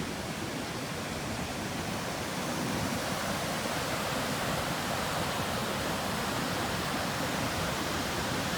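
Steady, even rush of ocean surf mixed with wind on the microphone at the beach.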